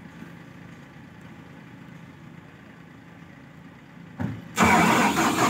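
Atlas Copco portable air compressor's diesel engine starting after its preheat: quiet for about four seconds, then the starter cranks briefly and the engine catches and runs loudly near the end.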